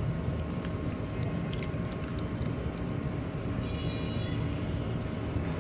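Raw chicken legs being squeezed and rubbed by hand in a wet yogurt marinade, with faint squelching clicks. Under it runs a steady low rumble with a faint hum.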